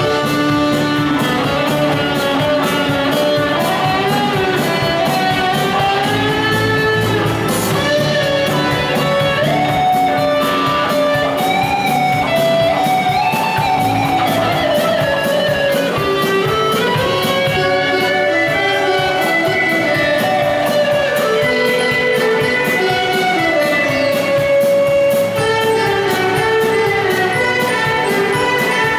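Large student orchestra of violins, cellos and other instruments playing live, a flowing melody over sustained accompaniment.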